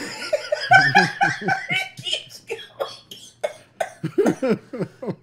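Two men laughing in a string of short bursts, heaviest in the first couple of seconds and then trailing off into breathy chuckles.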